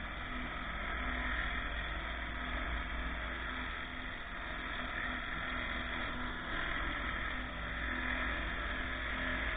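Pressure washer running with a steady mechanical drone.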